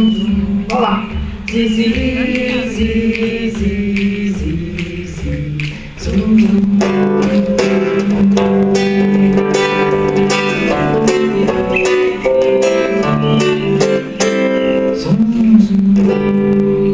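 Acoustic guitar played with a man singing into the microphone, a live folk song; the playing grows fuller about six seconds in.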